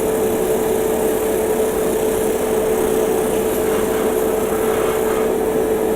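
Airbrush compressor running steadily: a constant motor hum over an even hiss of air.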